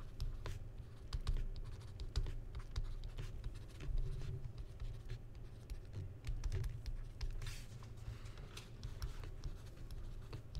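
Stylus tapping and scratching on a tablet screen while words are handwritten: irregular light clicks over a steady low rumble.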